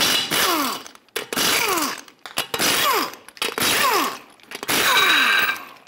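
Impact wrench spinning lug nuts off a car's steel wheel, in about five short bursts, one per nut, each ending in a falling whine as the tool winds down.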